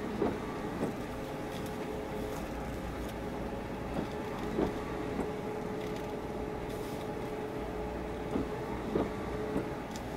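Steady harbour ambience: a low rumble with a constant hum, and a few short sounds rising above it now and then.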